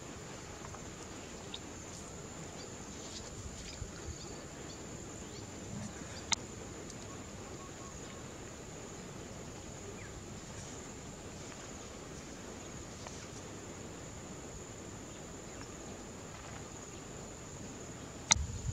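Quiet rural ambience with a steady high-pitched insect drone, a few faint clicks, and one sharp knock near the end.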